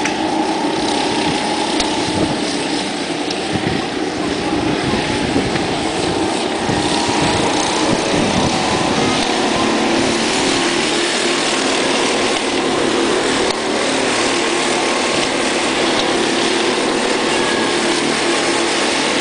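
Engines of several leisure racing karts running as they race round the track.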